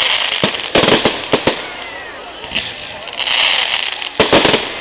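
Aerial fireworks bursting: a quick run of about five sharp bangs in the first second and a half and three more near the end, with a crackling hiss in between.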